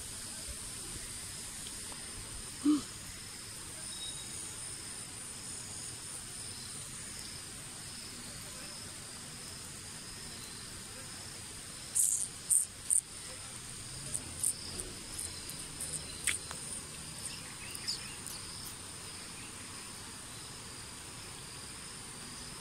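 Insects chirring steadily at a high pitch, with a fast pulsing texture. A few short sharp high sounds come through about halfway in.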